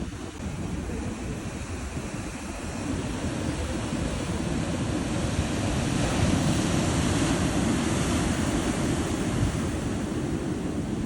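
Ocean surf: waves washing in as a steady rush that swells louder about halfway through.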